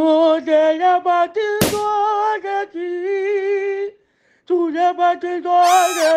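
A singing voice holding long, wavering notes with no instruments beneath it. It is broken by one sharp crack about a second and a half in and a brief gap near four seconds.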